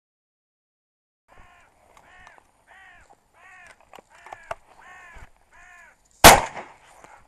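A crow cawing about seven times, roughly two harsh calls a second, starting about a second and a half in, then a single loud shotgun shot about six seconds in.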